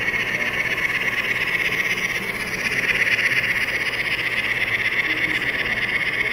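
N scale model train, a steam locomotive hauling hopper cars, running past close by: a steady hiss of the wheels and motor, a little louder about three seconds in as the locomotive goes by.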